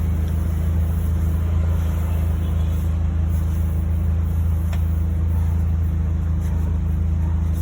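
A motor running at a steady low pitch, an unbroken hum, with one faint click a little under five seconds in.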